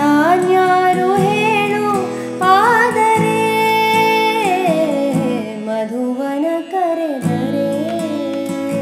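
A woman singing a Kannada film melody with an acoustic guitar strummed under her. She sings one word, then stretches it into long held notes that slide up and down.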